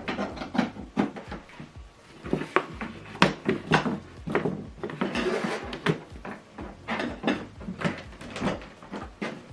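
Handling noise as power cables are plugged back into the TV and soundbar: an irregular run of clicks, knocks and light rustling.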